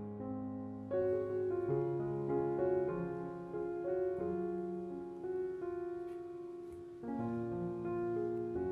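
Background piano music: slow, gentle sustained notes and chords, with new chords struck about a second in and again near the end.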